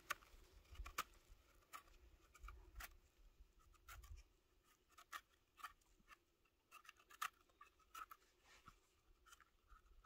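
Faint, irregular crackling and scratching of forest-floor litter (needles, twigs, duff) being disturbed, with scattered small snaps and no steady rhythm.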